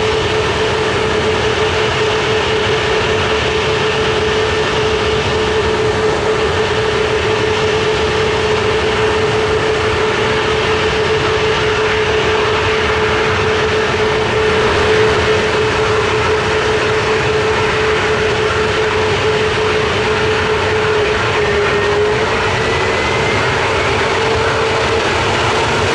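Airbus A321neo's turbofan engines running at low thrust while the airliner rolls slowly on the ground: a steady whine over a loud rush. The pitch dips briefly near the end and then begins to rise.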